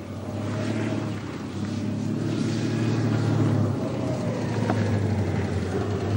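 Car engine running, growing louder over the first few seconds.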